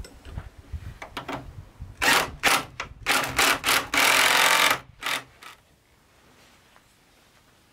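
Cordless impact driver driving a screw into a wooden frame brace. It runs in several short bursts, then in a longer run of rapid hammering about four seconds in, then two brief bursts before it stops.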